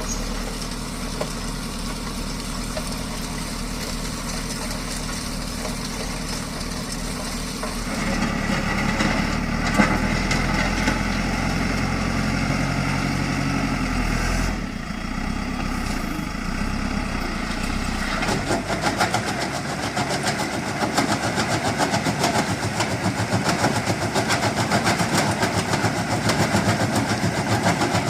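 JCB backhoe loader's diesel engine running steadily; about eight seconds in it grows louder under hydraulic load. In the second half a fast, even rattle joins it as the bucket attachment works stone and rubble.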